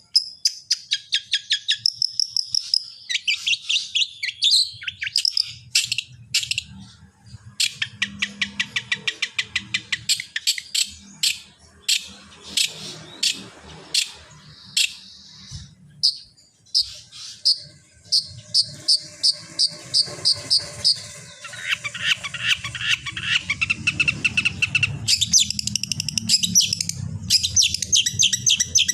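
Long-tailed shrike (cendet) singing a fast, varied song: rapid runs of sharp chirps and trills that switch to a new phrase every few seconds. A lower-pitched warbling stretch comes about two-thirds of the way in.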